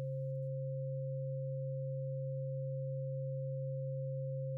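Steady electronic sine-tone drone for meditation: a low hum with a thinner higher tone above it, held unchanged throughout.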